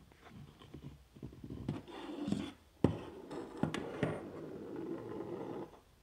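Handling noise on a workbench: irregular scraping and rustling with a few sharp clicks, the loudest click about three seconds in.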